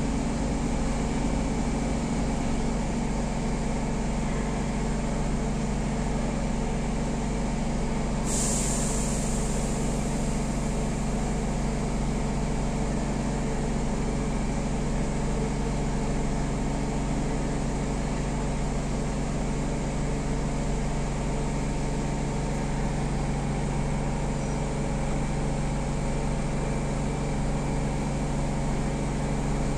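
Siemens C651 train car standing at a station with its doors open: a steady hum from its onboard equipment, with several low tones held throughout. About eight seconds in, a sudden hiss of released compressed air fades away over a couple of seconds.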